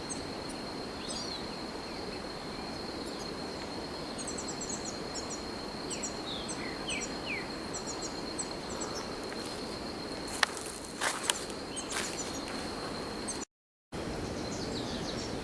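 Outdoor forest ambience: a steady high insect drone over a constant hiss, with birds chirping and giving short falling whistled calls. A few sharp knocks come between ten and twelve seconds in, and the sound cuts out briefly near the end, resuming without the insect drone.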